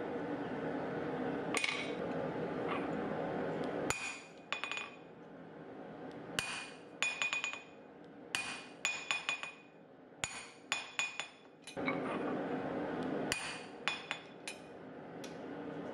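Hand hammer striking the top of a guillotine tool on an anvil, fullering a neck into a hot mild-steel bar to isolate the ball end. The blows come in quick groups, each a sharp metallic clink that rings briefly. Through the first few seconds and again near the end a steady rushing noise runs under the blows.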